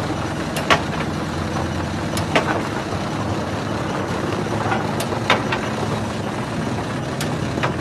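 Stone jaw crusher running with a steady heavy rumble, broken by several sharp cracks as rocks break in its jaws.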